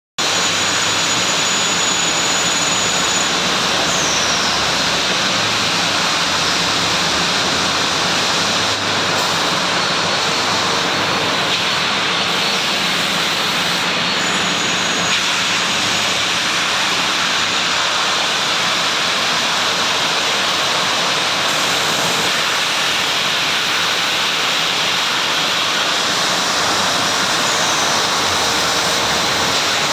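Automatic sanding machine for MgO boards running: a loud, steady rushing noise with a faint high whine.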